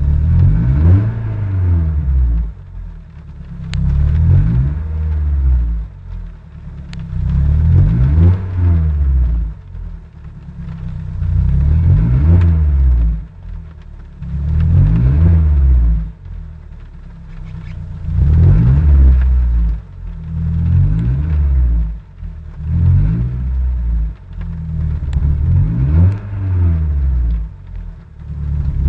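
Peugeot 206 S16's 2.0-litre 16-valve four-cylinder engine, heard from inside the car, revved again and again: it climbs in pitch and falls back toward idle about every three to four seconds.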